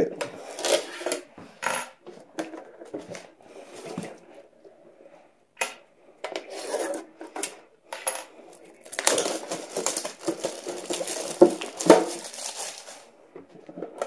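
Clear plastic shrink wrap crinkling and tearing as it is stripped off a metal Yu-Gi-Oh collector's tin, with light metallic clinks and taps as the tin is handled. The crinkling is thickest for a few seconds past the middle.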